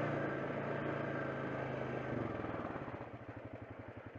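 ATV engine pulling steadily along a dirt trail. About three seconds in, the throttle is let off and the engine drops to a slow, even idle-like pulsing.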